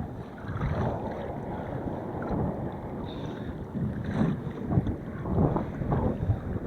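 Strong, gusty wind rumbling on the microphone, rising and falling in gusts, with water sounds around a fishing kayak.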